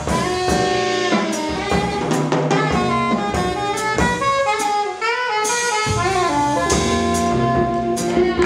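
Small jazz group playing live: a saxophone carries the melody over drum kit with cymbals and upright bass.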